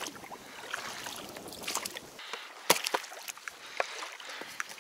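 Water noise around an inflatable boat in a reed channel, a steady rushing hiss. About two seconds in it gives way to a quieter stretch broken by a few sharp knocks, the loudest one about half a second later.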